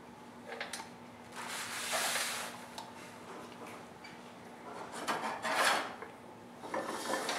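Cloth rubbing: clay-covered hands being wiped on a towel, in a few separate spells of a second or less, over a faint steady hum.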